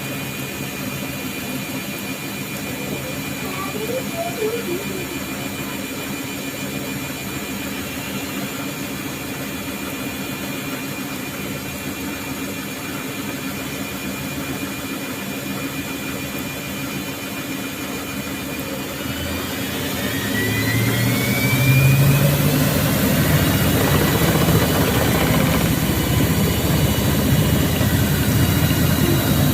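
Thomson washing machine running with a steady hum and a thin high whine. About twenty seconds in, the drum motor speeds up with a rising whine and the machine runs louder from then on.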